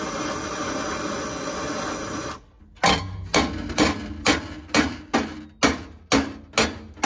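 Handheld gas torch hissing steadily as it heats the end of a steel exhaust pipe, cutting off about two and a half seconds in. Then a ball-peen hammer strikes the pipe about twice a second, each blow ringing briefly, tapping out a dent so an adapter will slide in.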